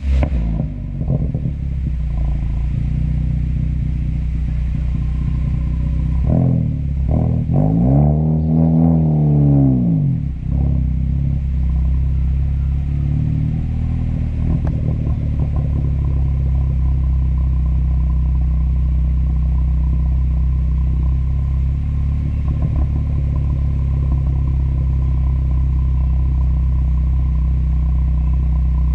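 Turbocharged Ford Focus ST idling through a catless downpipe and muffler-deleted cat-back exhaust. About six seconds in it revs up once and falls back to idle, with a few sharp crackles around the rev from its pops-and-crackles tune.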